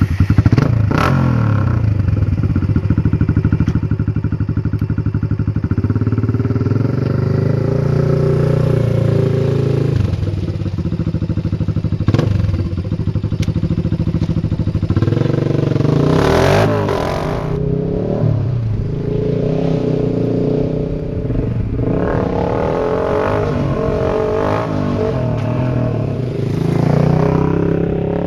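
Honda TRX300EX ATV's single-cylinder four-stroke engine running through an FMF PowerCore 4 exhaust. Just after starting it idles steadily, and in the second half it is revved several times, its pitch rising and falling.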